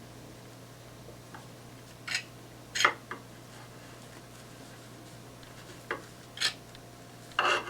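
A clamp being tightened and handled on a glued guitar neck joint: a few short, irregular clicks and knocks, with a small cluster near the end, over a steady low hum.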